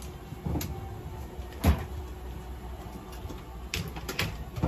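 A few sharp clicks and knocks over a low steady background hum. The loudest comes about a second and a half in, and a quick cluster of them falls near the end.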